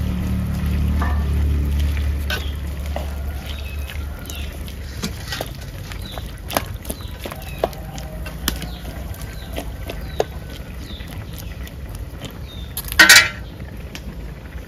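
Kitchen cooking sounds: light clinks and taps of a utensil against a pot, with one loud, brief clatter near the end. A low rumble fades out over the first few seconds.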